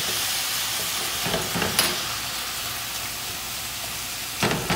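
Ground beef sizzling steadily as it fries in olive oil in a pan, stirred with a silicone spatula, with a few short clicks about two seconds in and near the end.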